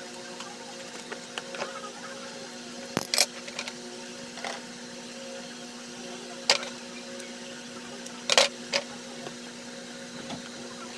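Handling and cutting of a cardboard box with a cutter: a few short, sharp scrapes and taps, the loudest about three, six and a half and eight and a half seconds in, over a steady low hum.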